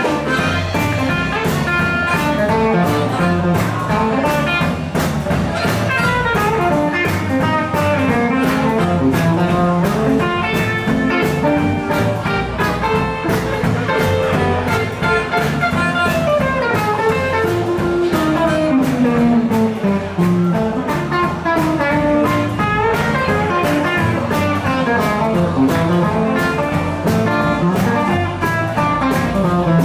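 Live blues band playing an instrumental passage: electric and acoustic guitars over a steady drum beat, with a lead melody line that bends up and down.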